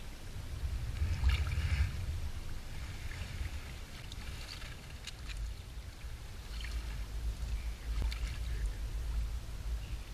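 Shallow river-mouth water washing through the mesh of a whitebait set net and over shingle. Irregular splashes and gurgles sit over a low rumble of moving water.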